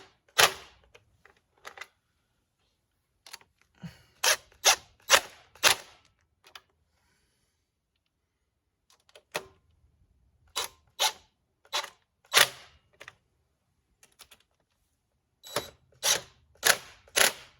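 Hand ratchet with an 8mm socket clicking in short bursts of sharp ticks, about two or three a second, with pauses between bursts, as valve cover bolts are snugged down.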